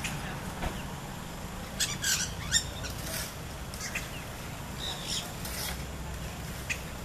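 Nanday parakeet chattering in short, harsh notes: a quick cluster about two seconds in, then scattered single calls, over a steady low background hum.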